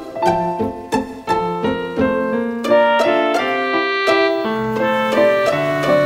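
Background music: a piano melody played note by note at a steady pace.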